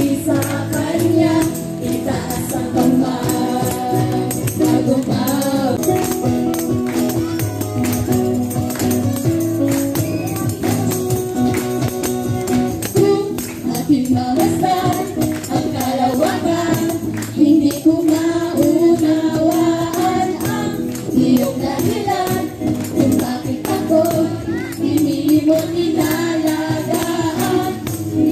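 A live church praise band playing a worship song through a PA sound system: several voices singing together into microphones over acoustic guitars and keyboard, with percussion keeping a steady beat.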